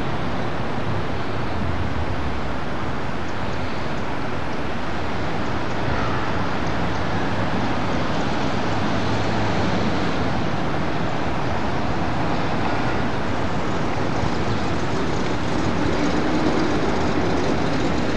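Steady road and engine noise of a car driving slowly along a city street, with a slight swell near the end.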